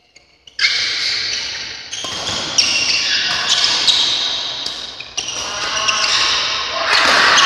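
Badminton rally: rackets striking the shuttlecock in a quick series of sharp hits, roughly one a second, each ringing on in the hall's echo. The rally starts about half a second in.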